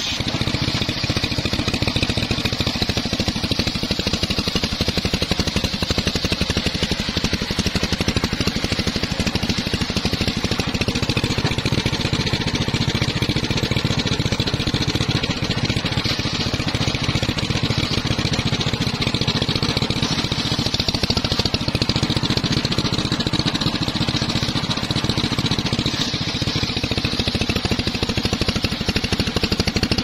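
A homemade circular saw bench running steadily, driven by an engine, as its blade cuts along a log.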